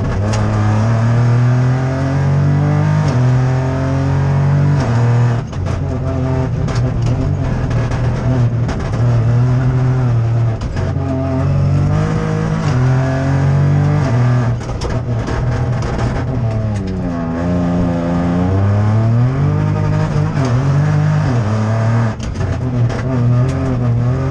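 Opel Corsa Rally4's turbocharged three-cylinder engine heard from inside the cabin, revving hard and shifting up and down through its gears again and again. Midway the revs fall away and climb again. Short, sharp cracks are scattered throughout.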